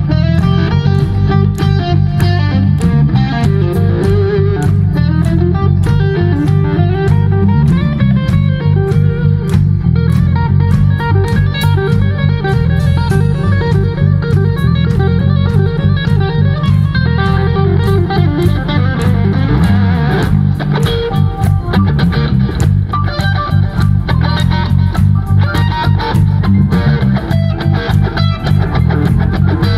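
Live band playing with an electric guitar in the lead over a steady drum beat.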